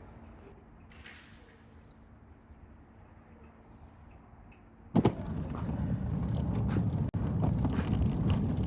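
Quiet ambience with a faint steady hum and a few brief high chirps, then an abrupt change about five seconds in to loud, rough noise with a strong low rumble, like wind buffeting the microphone.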